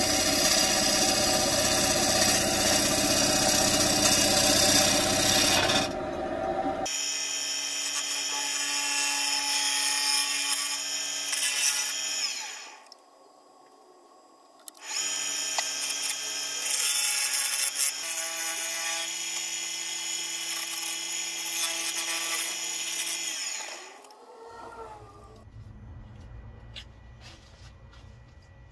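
Wood lathe spinning a cherry bowl blank while a gouge cuts it, a loud, dense scraping hiss of shavings. About seven seconds in it changes abruptly to a steadier power-tool hum, broken by a two-second pause, and near the end drops to a faint low hum.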